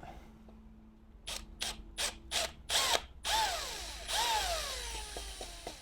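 Electric drill pulsed in about five short bursts, then run twice a little longer, its motor whining down in pitch after each release. The drill bit is boring out a stripped carburetor stud hole for a thread insert, with the trigger tapped to go only a little deeper.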